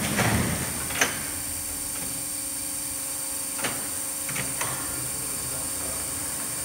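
Heidelberg SBD cylinder die-cutting press running, a mechanical clatter and hum. A sharp clack comes about a second in, after which it settles to a quieter steady hum with a few light clicks.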